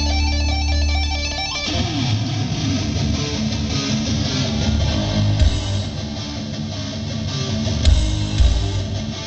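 Live rock band playing through a festival PA, recorded from the crowd: held chords change about two seconds in to strummed electric guitar.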